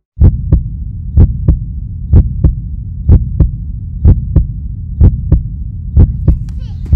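Heartbeat sound effect: a steady lub-dub double thump about once a second over a low, continuous hum.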